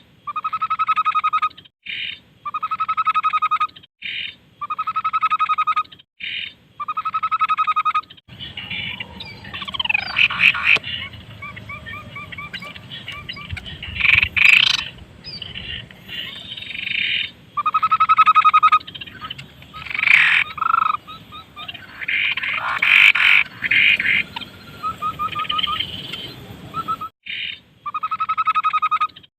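Tepus babbler calling: a buzzy, pulsed call about a second long, repeated every second and a half. About eight seconds in it gives way to a busier mix of chirps, quick trills and sharp notes over background noise, and near the end the pulsed calls start again.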